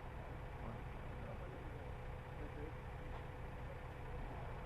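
Steady low outdoor rumble with a faint, even hum above it.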